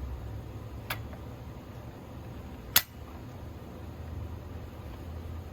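A low steady hum under hand-work on a Stihl MS 261 chainsaw's plastic tank handle as its tab is worked into place: a faint click about a second in, then one sharp, loud click near the middle.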